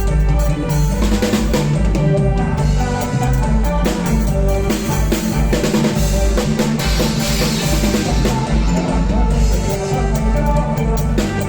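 Live band playing an instrumental passage of a kantruem song, with a drum-kit beat of bass drum, snare and rimshots under a heavy bass and sustained melody instruments, without singing.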